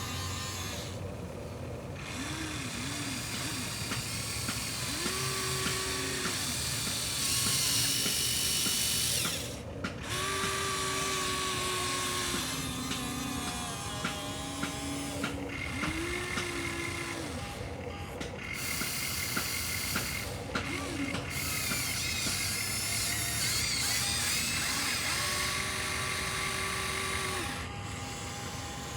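Small electric motors and plastic gearboxes of Huina remote-control construction models whining and grinding in repeated bursts, each rising in pitch, holding for a second or two, then falling as the motor stops, with several abrupt breaks.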